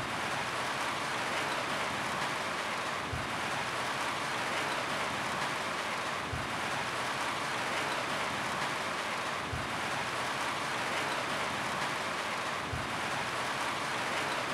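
Steady rain falling on a roof, a dense, even hiss with no letup. A faint low thud recurs about every three seconds.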